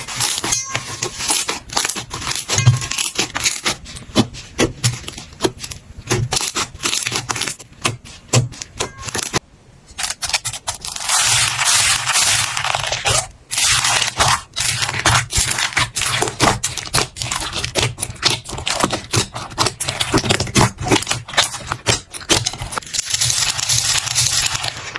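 Slime being worked by hand: a dense run of sticky crackles, pops and tearing sounds, broken by a brief gap about nine seconds in.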